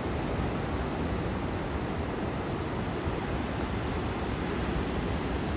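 Steady wash of ocean surf, with some wind noise on the microphone.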